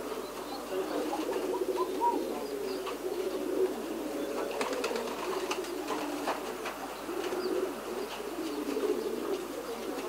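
Domestic pigeons cooing steadily together in their loft, with a few sharp clicks about halfway through.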